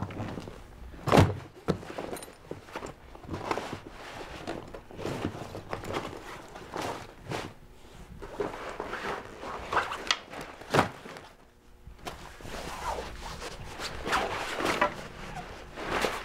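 Folding kayak skin, a stiff Hypalon rubber hull with its fabric deck, being folded and shifted on a carpeted floor: continual rustling and flapping of heavy coated fabric, with dull thumps, the loudest about a second in and another near eleven seconds.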